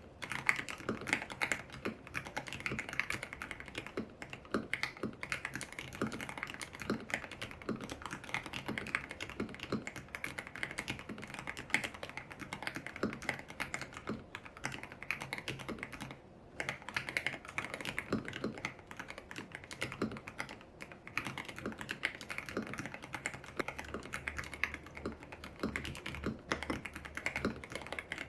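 Typing on a YUNZII X75 Pro mechanical keyboard with lubed Kaith Jellyfish switches, milky keycaps and a tape mod: a steady run of keystroke clacks, with a short pause about sixteen seconds in.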